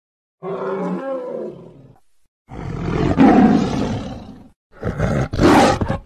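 Recreated calls of extinct animals. First a woolly mammoth: a pitched bellow, then a rougher, growling roar. After a short gap near the end, a sabre-toothed cat (Smilodon) roars.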